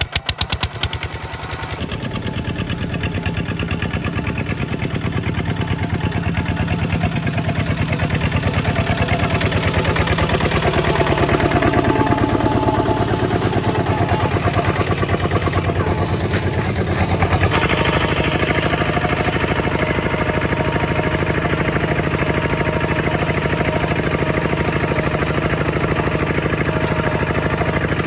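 Single-cylinder diesel engine of a Kubota two-wheel walk-behind tractor running with an even, rapid beat. It grows louder over the first ten seconds, and its tone changes about two-thirds of the way through.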